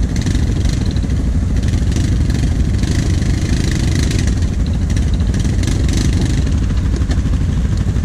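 Quad bike (ATV) engines idling steadily close by, with some light clatter.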